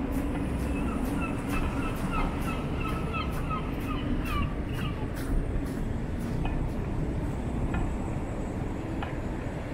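City street traffic at an intersection: a steady low rumble of car engines and tyres on slushy road, with regular footstep crunches on icy pavement. About a second in, a rapid run of short, high chirping notes lasts for roughly three seconds.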